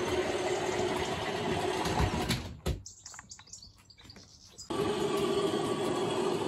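Model trains running on an OO-gauge layout: steady whirring and rumble of wheels on the track. The sound drops away for about two seconds partway through, then comes back abruptly.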